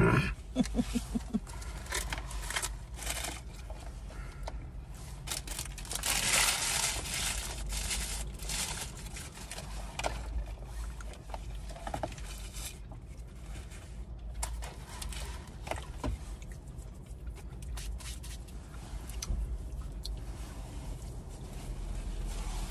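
Paper food wrappers crinkling and rustling as food is unwrapped and handled, with irregular scraping and crackling noises over a low steady hum of the car cabin.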